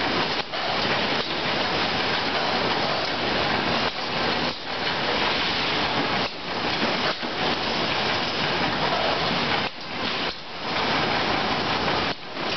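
Cucumber conveyor line running: a steady, dense rushing clatter of rollers and belts, with a few brief dips in level.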